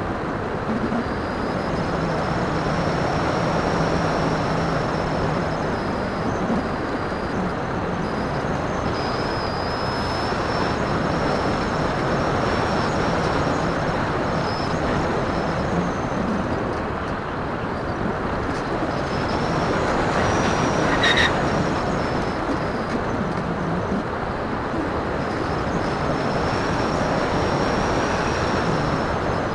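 Onboard sound of a Phoenix 2000 electric motor glider in flight: steady wind rush over the airframe and microphone, with the electric motor's high whine wavering in pitch and fading in and out. A short click comes about two-thirds of the way through.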